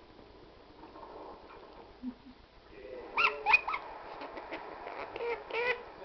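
Quaker parrot giving short rise-and-fall calls while it plays with the dogs, in a burst about three seconds in and another near the end.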